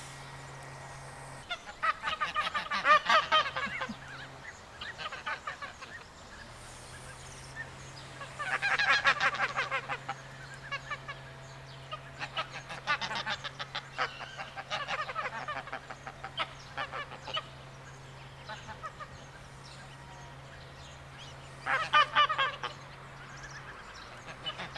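Domestic geese honking: three loud bursts of rapid calls, about two seconds in, around nine seconds in and near the end, with scattered single honks in between.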